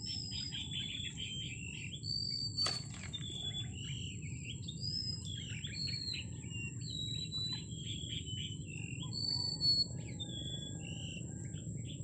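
Birds singing, a continuous run of short whistled notes and chirps, over a steady low background rumble and a faint steady high tone; a single sharp click about three seconds in.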